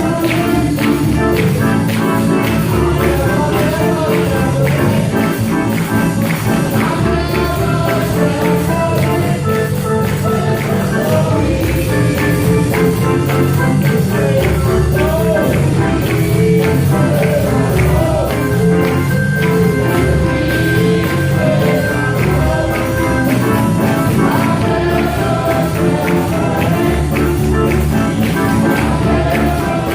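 Gospel music with a steady beat, percussion keeping time, and singing.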